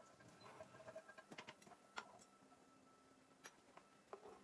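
Near silence with a few faint, scattered clicks and taps of a metal fork and knife against a plate and a wooden cutting board.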